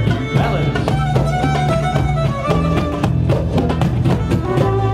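Live acoustic dance band playing a contra dance tune: fiddle melody over strummed guitar and a plucked mandolin-type instrument, with djembe and other hand drums beating a steady rhythm.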